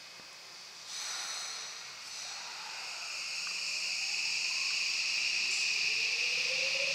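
Subway train pulling out of a station: a sudden hiss of air about a second in as the brakes release, then the electric drive's steady high whine grows louder, and a motor tone starts climbing steadily in pitch as the train speeds up.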